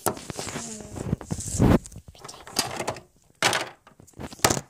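Handling noise from the recording camera being moved about: a run of knocks and thumps with rubbing, the loudest about two seconds in.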